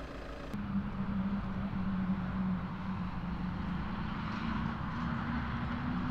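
Fire brigade water tanker truck driving past, its engine running with a steady low hum, starting about half a second in.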